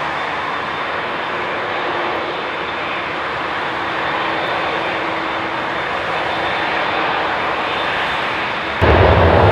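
Boeing 787-9 jet engines running at taxi power as the airliner turns onto the runway: a steady rush with a faint hum. Near the end the sound jumps suddenly louder, with a deep rumble.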